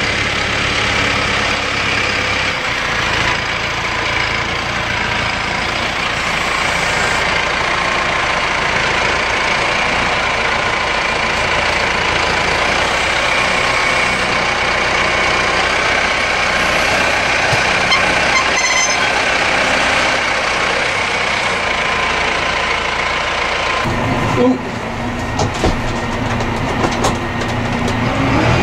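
Massey Ferguson 5711 tractor's four-cylinder diesel engine running steadily under load as it drives up and its front loader lifts a wrapped bale onto a trailer, with a steady whine over the engine. About four seconds from the end the sound cuts to the quieter, muffled engine heard inside the cab, with a few clicks.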